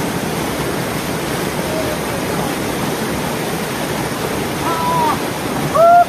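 Steady rush of a rocky mountain stream cascading over boulders, with a person's short shout near the end.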